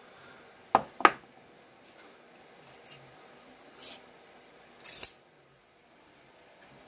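Metal parts being handled and set down on a wooden workbench: two sharp clinks about a second in, a softer knock near four seconds, and another clink about five seconds in.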